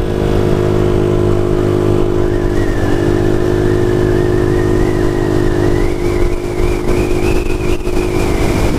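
Scooter engine running steadily under way, with low rumble and a higher whine that steps up in pitch about two seconds in and again around six seconds in as it gathers speed.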